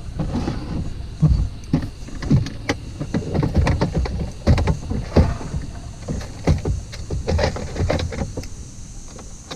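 Irregular knocks, thumps and rattles against an aluminium-or-plastic canoe hull and fishing gear as a just-caught small Australian bass is handled for unhooking, with a dozen or so sharp knocks scattered through the stretch.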